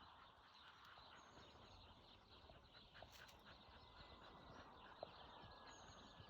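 Faint ducks and other birds calling over a dense crackle of short calls, with a few thin high whistles.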